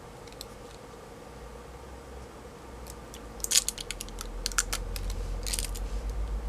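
Hand disassembly of a lithium-ion notebook battery pack: after about three seconds of quiet, a quick cluster of sharp clicks and crackles of plastic and metal parts being worked, then another short burst, with a low handling rumble building underneath.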